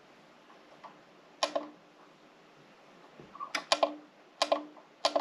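A few sharp clicks and taps: one about a second and a half in, then a quick run of them over the last two seconds.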